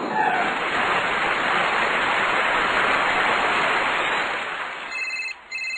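A loud, even rushing hiss that fades out after about four seconds, then an electronic telephone ringtone in two short bursts near the end.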